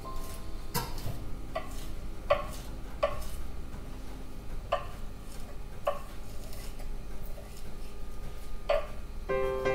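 Kitchen knife chopping basil leaves on a wooden cutting board: about seven sharp, irregularly spaced taps of the blade on the board, with a longer gap in the middle.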